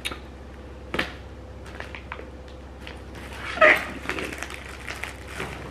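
Clear plastic packaging handled in gloved hands: a couple of sharp taps, then light crinkling. About two-thirds through comes one short, high-pitched yelp, the loudest sound here.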